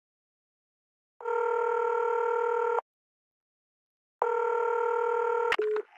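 Telephone ringing tone heard twice, each ring a steady electronic tone about one and a half seconds long. Near the end it is cut off by a click and a brief lower beep as the call is picked up.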